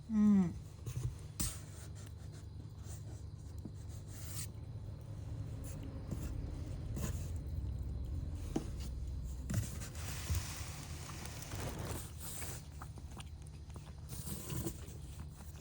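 A cat meows once at the start, its pitch falling. After that come scattered scraping and rustling noises over a steady low hum.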